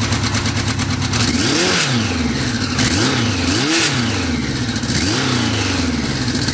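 Kawasaki Z1000 LTD's air-cooled inline-four engine idling, then revved again and again from about a second in, the revs rising and falling roughly once a second.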